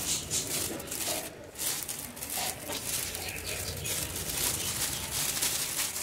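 Thin polythene grocery bag crinkling and rustling in the hands, a steady run of fine crackles, as its mouth is gathered and tied off with a rubber band.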